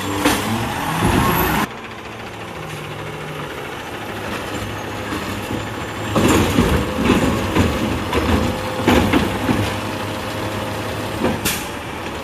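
Automated side-loader garbage truck working: the diesel engine runs steadily while the hydraulic arm grabs and lifts a yard-waste cart, with clanks and a thin hydraulic whine. A loud stretch cuts off suddenly about two seconds in, and it grows loud and clattering again from about halfway.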